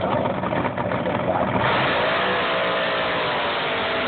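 Drag boat's engine idling, then opening to full throttle about a second and a half in as the boat launches. It becomes a loud, steady engine note whose pitch sags briefly, then holds as the boat speeds down the course.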